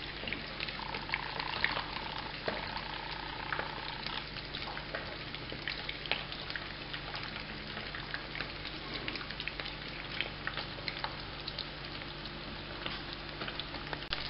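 Oil sizzling and crackling steadily around stuffed bitter gourds (karela) shallow-frying in a pan, with frequent sharp pops of spattering oil.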